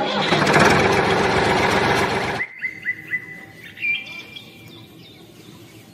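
A loud, steady rattling hiss that cuts off abruptly after about two and a half seconds, followed by small birds chirping in short, repeated calls.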